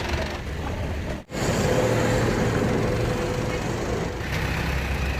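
A vehicle engine running steadily with a low rumble, broken by a sudden momentary cut-out about a second in.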